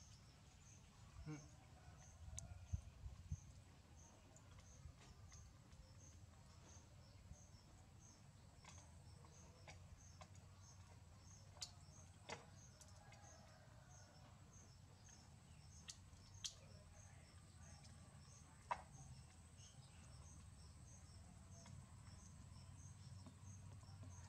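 Faint insect chirping, an even, regular pulse a little more than once a second, over a low hum. Now and then a sharp click stands out, the loudest of them about three seconds in and near the middle, fitting peanut shells being cracked by hand.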